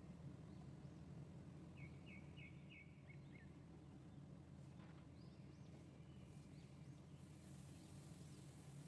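Near silence: a steady low hum, with a quick run of about five faint high chirps about two seconds in and a few more faint chirps near the end.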